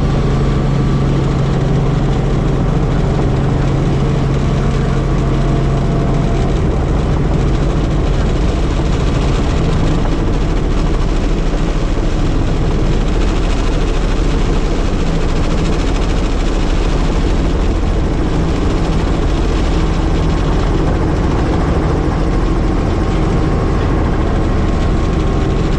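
Helicopter running, a steady loud drone of engine and rotor. Its low hum shifts slightly in pitch about seven to ten seconds in.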